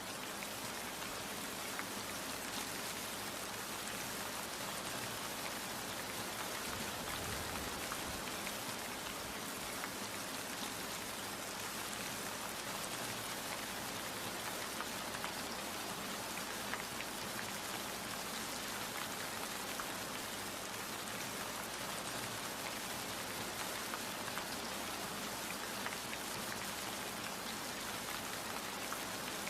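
Steady rain falling, with many individual drops ticking on a surface over the even hiss of the downpour.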